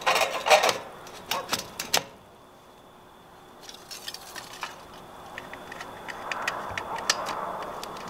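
Stainless-steel stovepipe sections being handled and fitted: sharp metal clinks and knocks in the first two seconds, then a run of light ticks with some rubbing as a band collar on the pipe is worked with a hand tool.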